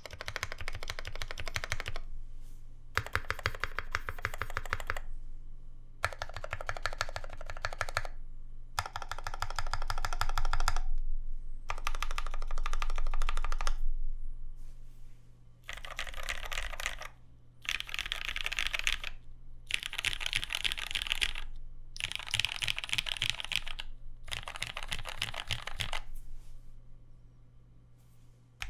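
Custom mechanical keyboard with lubed Garries switches (Gateron Yellow linears with Cherry top housings) on a polycarbonate plate with dye-sub keycaps, being typed on. It comes in fast runs of keystrokes about two seconds long with short pauses between.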